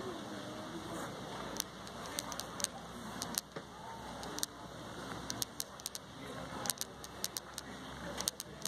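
Outdoor crowd ambience: faint distant voices over a steady low background rumble, with scattered sharp clicks throughout.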